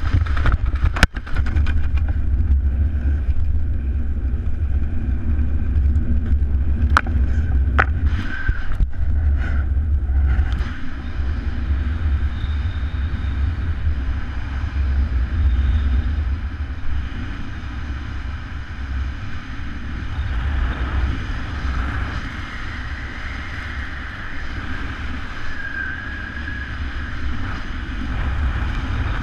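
Wind buffeting a helmet camera's microphone under an open parachute canopy: a steady low rumble with a few sharp clicks in the first ten seconds and a faint whistle later on.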